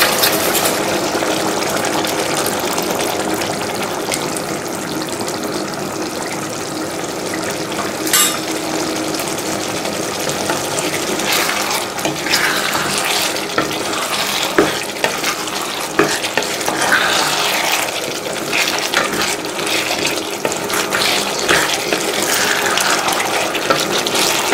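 Chicken in green-chilli gravy simmering and sizzling in a wok. From about halfway through, a wooden spatula stirs and scrapes through it in repeated strokes.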